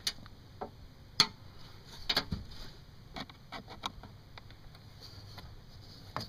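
Scattered light clicks and taps, irregular and a dozen or so in all, the loudest about a second in, from hands and a screwdriver working around the plastic cowl cover under the hood.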